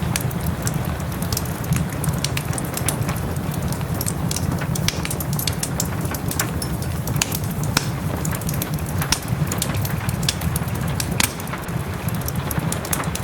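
Wood fire in a fireplace crackling, with many sharp, irregular pops, over a steady hiss of gentle rain and a low rumble.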